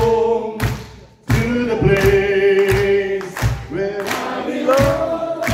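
Live folk song: a male voice sings long held notes over strummed guitar chords that hit on the beat, with many voices seeming to sing along.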